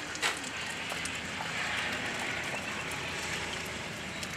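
Steady heavy rain falling, an even hiss that swells slightly in the middle, with a few faint drip ticks near the start.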